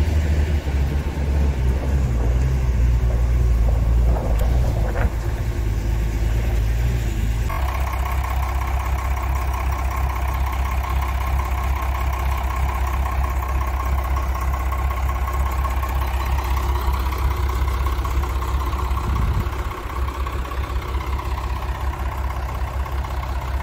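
Shaktiman military truck's engine idling steadily, a deep even rumble whose sound shifts about seven seconds in and then holds, heard close with the engine cover open.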